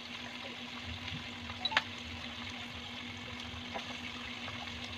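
Pork belly chunks deep-frying in hot oil: a steady sizzling hiss with a few sharp pops of spattering oil, the loudest a little under two seconds in. A faint steady hum runs underneath.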